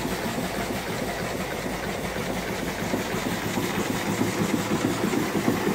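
Small single-cylinder horizontal steam engine running steadily, its exhaust chuffing up the boiler stack in a rapid, even beat along with the clatter of its moving parts.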